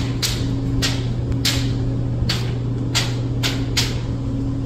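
A steady low indoor hum, with short scuffing noises at irregular intervals, about eight of them.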